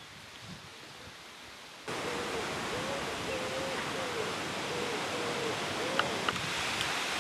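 Wind blowing, a steady rushing hiss that jumps suddenly louder about two seconds in. A faint wavering tone runs through the middle, and two short clicks come near the end.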